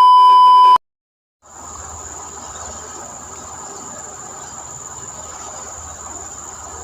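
A loud electronic beep lasting under a second, cut off suddenly, then after a brief silence a steady outdoor background of insects keeping up a constant high-pitched drone.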